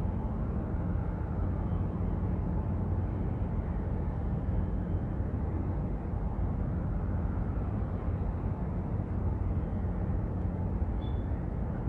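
Steady low rumble of outdoor waterfront ambience, even throughout, with a faint brief high chirp near the end.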